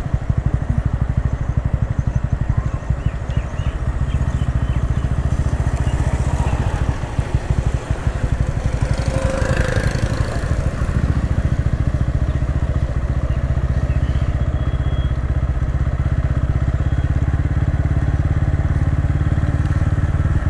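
TVS Ronin 225's single-cylinder engine running steadily as the motorcycle is ridden along, a continuous low engine note.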